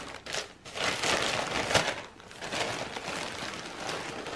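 Plastic potting-soil bag crinkling and rustling in irregular bursts as it is handled and its open end gathered for pouring.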